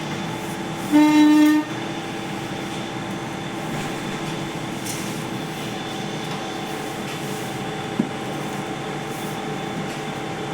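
Steady hum of laboratory machinery with several fixed tones. About a second in, a short flat buzzing tone sounds once for about half a second, and a single sharp click comes near the end.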